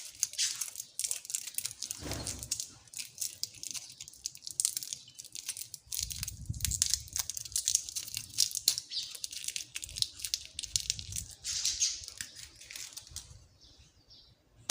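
Plastic candy wrapper crinkling and tearing as candy is unwrapped, a dense run of sharp crackles that thins out near the end.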